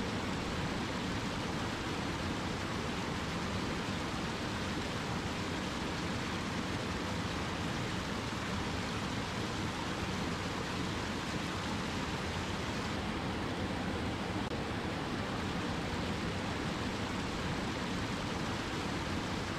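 Cascading water rushing steadily, an even hiss with no music over it.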